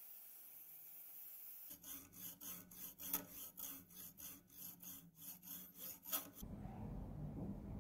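Flat hand file rasping back and forth across a metal key blank held in a vise, about three strokes a second for some four to five seconds, starting a couple of seconds in. Before the filing there is only a faint hiss; near the end the filing stops and a steady low hum takes over.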